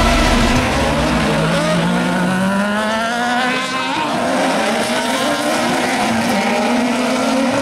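Several autocross buggy engines at full throttle, their pitch climbing steadily as the pack accelerates, with a break in the pitch about four seconds in, as at a gear change.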